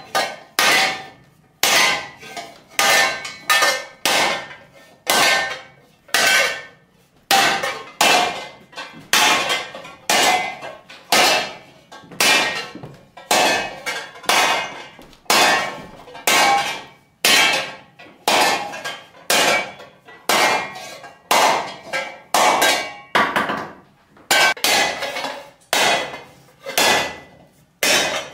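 Sheet steel for a helmet skull being hammered over a steel stake: a steady run of hand-hammer blows, a little more than one a second, each with a brief metallic ring. The steel is being dished and shaped into a bascinet.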